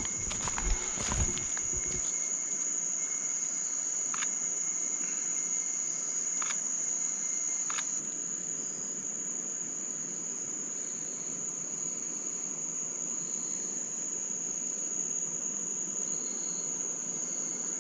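Night insects calling in one steady, continuous high-pitched trill, with a few low thumps in the first two seconds and some faint clicks.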